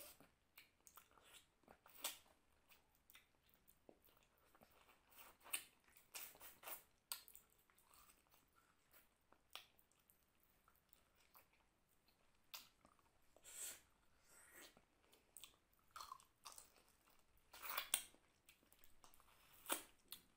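A person chewing mouthfuls of mutton curry and rice: irregular wet smacks, clicks and squelches of the mouth, with a few louder smacks along the way.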